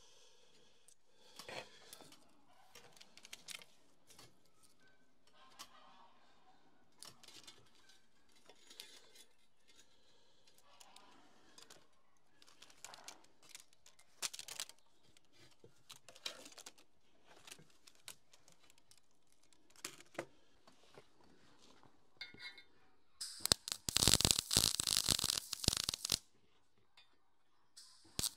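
Light scraping, clicking and rustling of hand work, as a nest is cleared out of the excavator's quick attach. About 23 s in, a loud, even, hiss-like noise lasts about three seconds and starts again at the very end.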